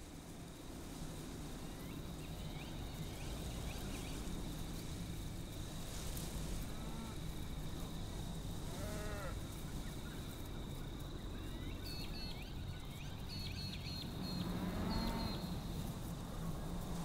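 Rural pasture ambience fading in over a low rumble: cattle lowing a few times, the loudest call near the end. Short high chirps and a steady high-pitched hum run beneath.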